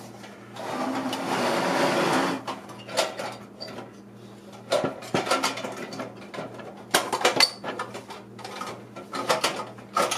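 Toy castle playset parts being handled and fitted together: a rustling scrape for the first couple of seconds, then scattered clicks and short clatters of hard pieces knocking and snapping into place.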